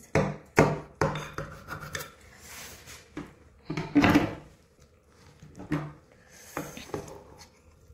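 Metal kitchen utensils (a spatula, a chef's knife and a spoon) scraping and knocking against a glass baking dish as a lasagna is cut and a piece is lifted out. The scrapes and knocks are irregular, with the strongest about half a second in, at one second and around four seconds.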